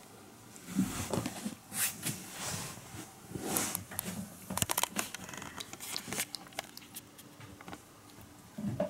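A kitten biting and tugging at a person's curly hair close to the microphone: irregular rustling and crunching in bursts, with a quick run of sharp clicks about halfway through.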